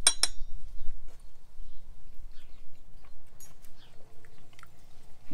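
Someone tasting garlic-herb olive oil: a short sharp sound right at the start, then soft lip-smacking and chewing.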